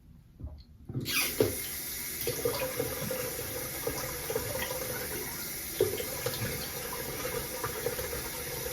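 Water tap turned on about a second in, then running steadily into a sink.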